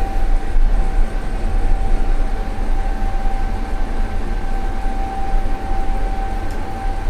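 Toshiba passenger elevator travelling between floors: a steady low rumble with a constant high whine over it.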